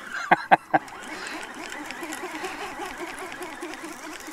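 A fishing reel being cranked during a fight with a blue catfish, a steady whirring over wind and water, with three sharp clicks close together near the start.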